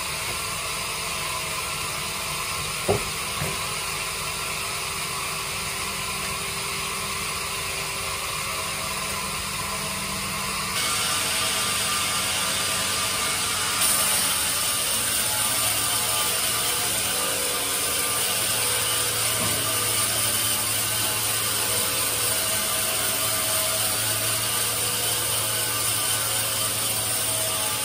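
Band sawmill machinery running steadily with a continuous mechanical whirr, and a single sharp knock about three seconds in. The noise becomes louder and brighter about eleven seconds in.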